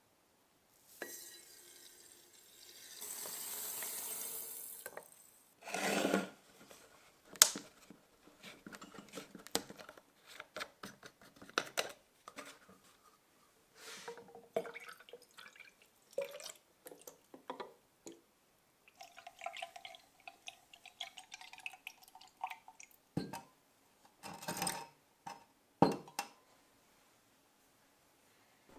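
Citric acid crystals poured from a small glass into a glass conical flask of water, a hissing trickle for a few seconds. Then glass clinks and bottle handling, and hydrogen peroxide poured from a small bottle into the flask, with a steady pouring tone for a few seconds past the middle and more clinks of glass near the end.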